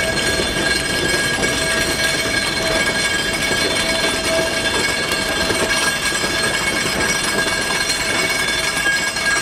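1904-built Mount Washington Cog Railway steam locomotive No. 9, Waumbek, working past at close range with a coach: a steady, loud mix of escaping steam and running-gear noise, with several steady high tones over it.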